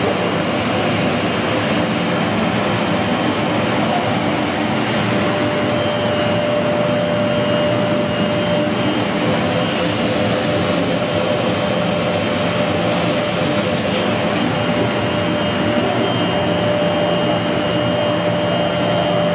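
Plastic film squeezing dryer line running steadily: a loud, even machine drone with a steady high whine running through it.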